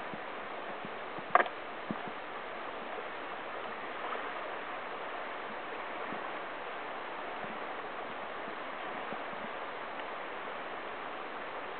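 Steady rush of flowing river water over a shallow riffle, with one sharp knock about a second and a half in and a fainter one shortly after.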